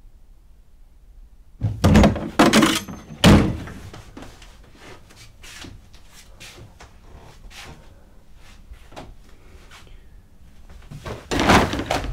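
Heavy bangs and thuds, three in quick succession, then a run of lighter, irregular knocks and taps, and another loud burst of banging near the end.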